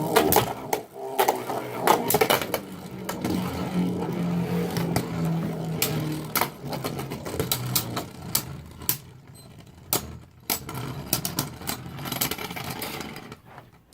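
Two Beyblade Burst Turbo tops, Vice Leopard L4 and Silver-X Jormuntor J4, spinning in battle. They make a whirring hum and clack against each other again and again at irregular moments. The sound winds down and stops near the end as the tops lose spin.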